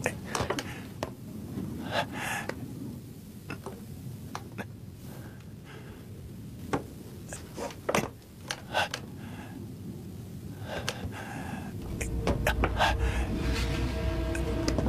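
A man gasping and breathing hard as he climbs, over scattered sharp knocks and creaks of wooden scaffolding poles. A low rumble comes in over the last few seconds and grows louder.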